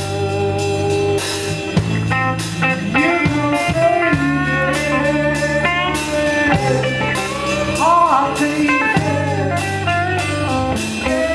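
Blues band playing an instrumental passage: electric guitar with bending notes over bass and a steady drum beat.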